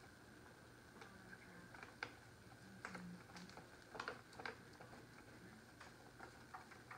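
Faint, scattered ticks and crackles of self-adhesive marble-pattern vinyl being pressed and smoothed onto a board, over a faint low hum.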